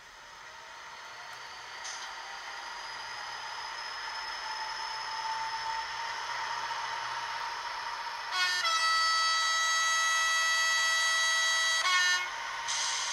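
Digital sound decoder of an HO-scale SNCF CC 7100 electric locomotive model, playing through its small onboard speaker: the locomotive's running sound builds with a rising whine as the model pulls away, then one steady horn blast sounds for about three and a half seconds from around eight seconds in, and the running sound carries on after it.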